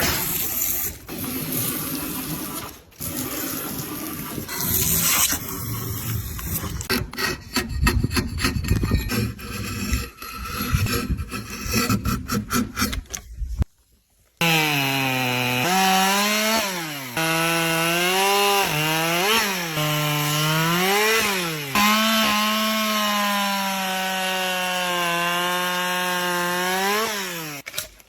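Hand tools working wood: a busy run of scraping, rasping and sawing strokes with knocks. About halfway through it stops, and a single strong pitched tone follows, held in long notes that slide up and down.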